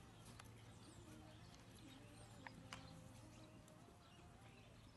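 Near silence, with the faint soft footfalls of a young racehorse walking on grass and two light clicks about halfway through.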